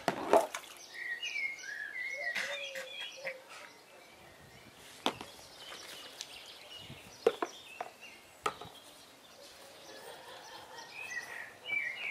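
Sharp, hollow knocks of a plastic jug against a plastic toddler slide and paddling pool, a handful spread through, the loudest at the start. Birds chirp briefly about a second in and again near the end.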